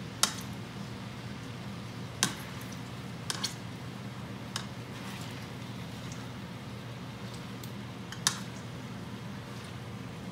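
Whole grapes being crushed with a wire potato masher in a skillet to release their juice: soft squishing, with about six sharp clinks of the metal masher against the pan, the loudest right at the start and about eight seconds in. A steady low hum runs underneath.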